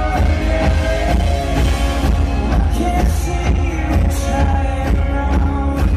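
Live rock band playing a song on electric guitars, acoustic guitar and drums, heard loud from the audience.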